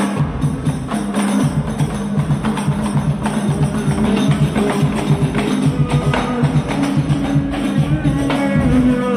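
Rebana frame-drum ensemble playing a fast, even sholawat rhythm. A voice begins singing near the end.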